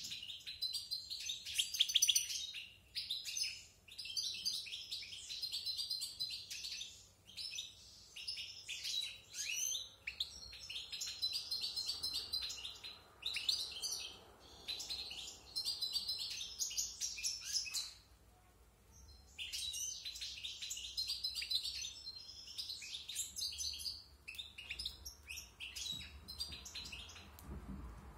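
A caged European goldfinch, about a year old, singing a fast, varied twittering song in phrases of a few seconds, with short breaks between phrases and a longer pause about eighteen seconds in.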